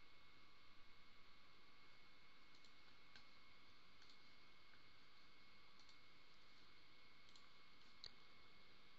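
Near silence: faint room hiss with a thin steady whine, and a few faint, scattered computer-mouse clicks.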